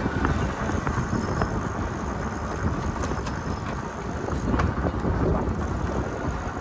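Steady low rumble of wind and rolling noise while riding a bicycle, with a few short clicks and rattles.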